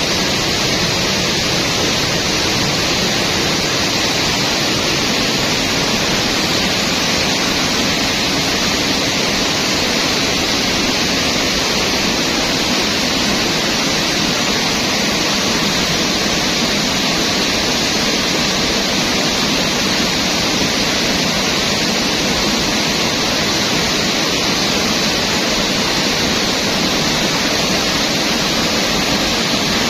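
River rapids rushing steadily, a loud, even sound of fast water without a break.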